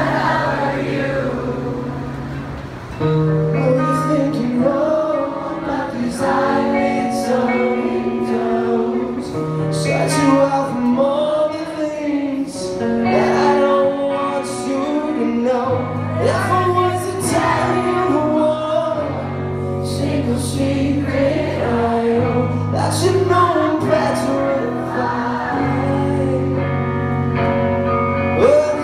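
Live rock band playing: electric guitar over held bass notes and drums with cymbal strikes, with singing over it.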